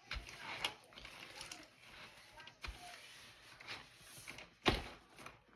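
Scattered clicks, light knocks and scraping from a plastic keyboard being handled and cleaned, with one sharper knock near the end.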